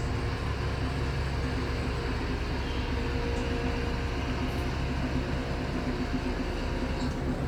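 Steady low drone of a car ferry's engines and onboard machinery, heard inside the passenger cabin, with several constant low hum tones.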